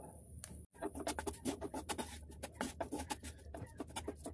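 Wooden spatula scraping and tossing fried rice in a frying pan: rapid, irregular scrapes and taps against the pan, starting about a second in.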